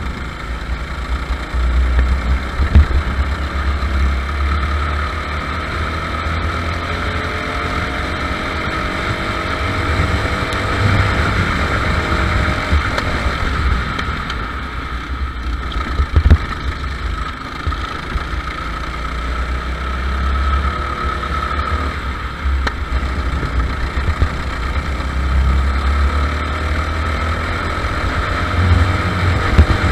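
Go-kart engine heard from an onboard camera on the kart, its pitch rising repeatedly as it accelerates out of corners and falling back between. Two sharp knocks stand out, one about three seconds in and one about halfway through.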